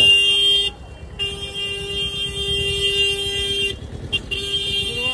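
A vehicle horn blaring in long, steady blasts: one ends under a second in, a second holds for about two and a half seconds, and a third starts just over four seconds in. A low rumble of street noise runs beneath.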